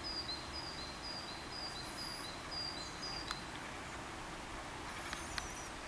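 A small songbird singing a rapidly repeated two-note phrase, high then low, for about the first three seconds, then thin high chirps near the end, over a steady outdoor background hiss. A sharp click comes about halfway through.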